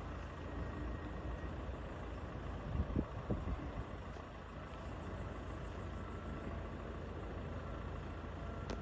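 Steady low outdoor rumble, with a few brief knocks about three seconds in.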